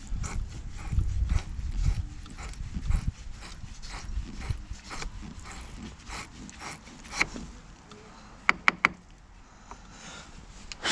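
Wire-bristle battery terminal cleaner scraping corrosion off a battery post and terminal clamp in repeated short rasping strokes, heavier in the first few seconds, then three quick sharp clicks near the end.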